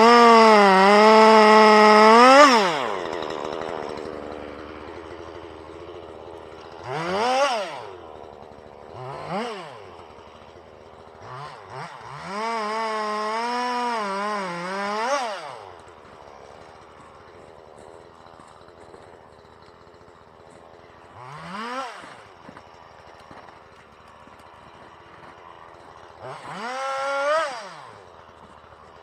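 Chainsaw engine running: held at high revs twice, for about two and a half seconds at the start and for about three seconds in the middle, with four short revs up and down between, and idling otherwise.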